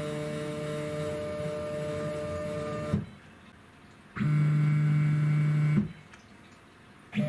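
Stepper motors of a CNC-converted Sieg X2 mini mill whining steadily as the axes move, in three runs of different pitch. The whine stops about 3 s in and again near 6 s, with short pauses between moves.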